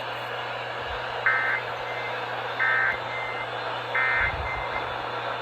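Emergency Alert System end-of-message signal: three short bursts of warbling digital data tones about 1.3 seconds apart, over a steady radio hiss and hum, marking the end of a broadcast weather warning.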